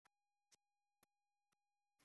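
Near silence, with only a very faint steady tone and faint ticks about twice a second.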